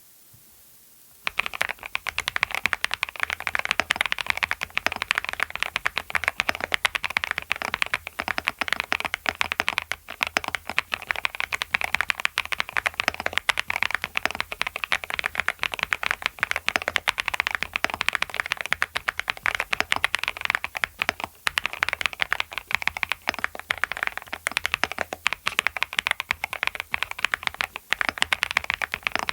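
Fast, continuous typing on a custom mechanical keyboard fitted with Clackbits linear switches, a dense stream of key clacks that starts about a second in.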